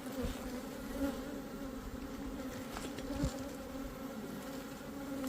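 Honeybee colony buzzing steadily as a low, even hum around an open brood box, with a soft knock about three seconds in.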